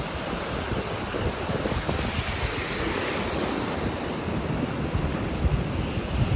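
Atlantic surf breaking and washing up the beach, its hiss swelling about halfway through, with wind buffeting the microphone.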